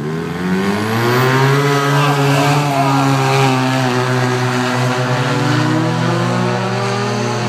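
Two drag-racing cars launching at full throttle: a Ferrari 360 Spider's V8 and a Smart car powered by a turbocharged snowmobile engine. The engine note bursts in suddenly and climbs in pitch for a second or so, then holds steady while slowly fading as the cars run away down the strip.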